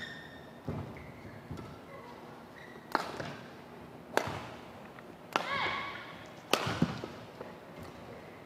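Badminton rally in an indoor hall: sharp racket strikes on the shuttlecock about a second apart, six in all, with the thud of players' feet on the court. A brief shoe squeak on the court floor comes just after the midpoint.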